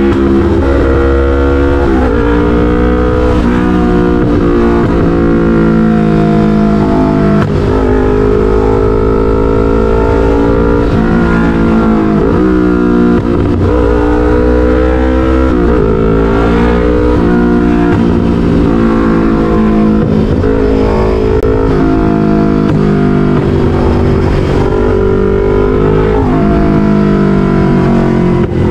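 Yamaha MT-03's parallel-twin engine breathing through an SC-Project full exhaust, ridden at highway speed. Its pitch climbs under throttle and drops back again and again as the rider rolls on and off.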